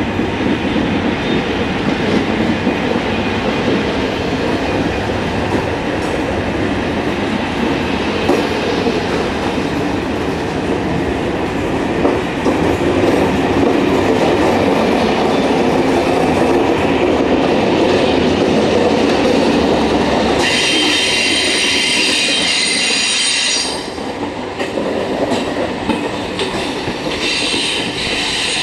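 SNCF passenger coaches rolling past, a steady rumble of steel wheels on rail. About three quarters of the way through, a high-pitched wheel squeal cuts in for about three seconds, and it returns more faintly near the end.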